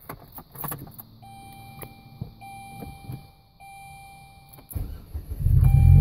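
A few clicks, then a car's dashboard warning chime dinging about once a second. Near five seconds the starter cranks briefly, and the supercharged 2.2L Ecotec four-cylinder catches on a cold start and runs at a loud, steady fast idle while the chime keeps going.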